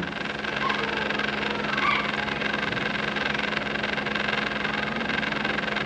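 PolyScience sous vide immersion circulator running in a water bath with a steady hum as its pump circulates the water; the unit is heating again after repair.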